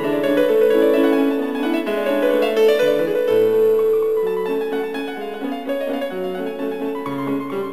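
Background instrumental music: a piano playing a flowing melody over chords.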